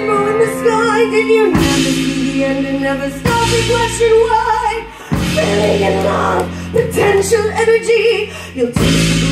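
Live rock band playing: a woman sings held, wavering notes into a microphone over electric bass, electric guitars and a drum kit, the chords changing every couple of seconds.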